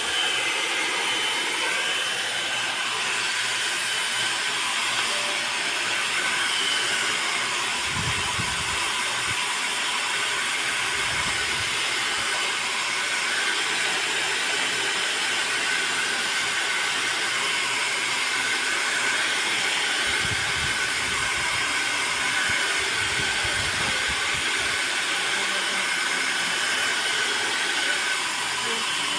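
Hand-held hair dryer blowing steadily at close range as wet hair is blow-dried: a constant rushing hiss with a faint steady motor whine, and a few brief low rumbles.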